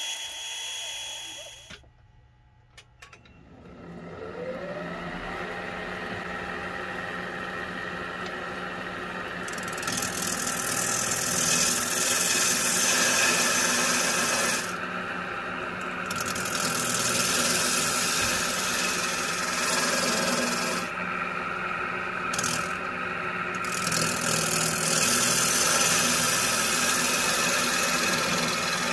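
Wood lathe motor spinning up with a rising whine about four seconds in, then running steadily. A gouge then cuts the spinning cherry bowl, and the cutting noise stops and starts a few times as the tool comes off the wood.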